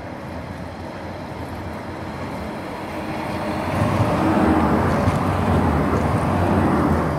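Vehicle noise: a steady low hum and rushing that grows louder about three and a half seconds in and then holds loud.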